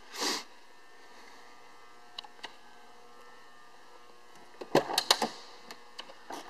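Pickup truck door being opened: a quick cluster of latch clicks and clunks about five seconds in, with a short hiss near the start and a few light ticks before and after.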